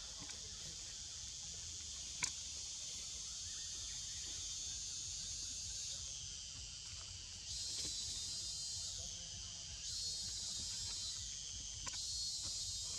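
Forest insect chorus, a steady high-pitched buzz that swells louder about halfway through and again a couple of seconds later. A single sharp click comes about two seconds in.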